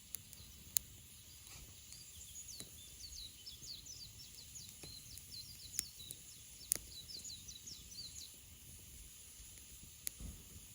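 A bird sings a long run of quick, high, chirping notes from about two seconds in until near the end, over a wood campfire crackling with a few sharp pops.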